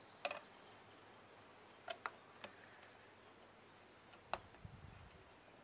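Light wooden clicks and taps of thin bars being pushed by hand into the slots of a wooden beehive frame, about five sharp clicks spread out, with a brief low rumble of handling a little after the last one.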